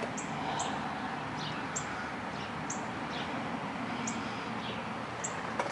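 A small bird chirping repeatedly: short, high, falling chirps about once a second, over a steady background hum.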